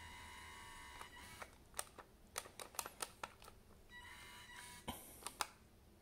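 The small motor of a yellow BD-unit remote-control droid toy whines steadily and stops about a second in. Then come a run of sharp clicks from the plastic buttons of its toy remote being pressed, several in quick succession, with a brief motor whir near four seconds.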